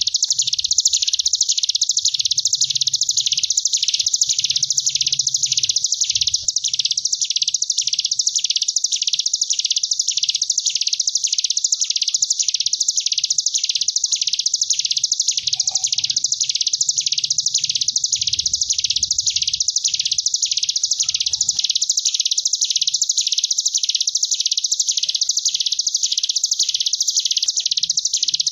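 Ciblek gunung (a prinia) ngebren: a continuous high-pitched buzzing trill that rises and falls in even waves about twice a second, the bee-like "gelombang tawon" style.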